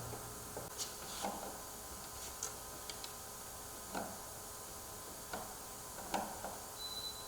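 Irregular light clicks and taps of door lock hardware (deadbolt and knob parts and a screwdriver) being handled and fitted, about ten over several seconds, with a brief faint high squeak near the end.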